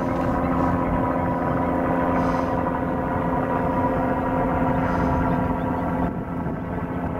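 Steady drone of an aircraft overhead: several held tones over a low rumble. The higher tones thin out and the level dips about six seconds in.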